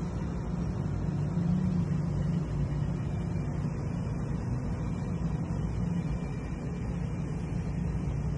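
A steady low rumble of background noise, even and unbroken, with no distinct events.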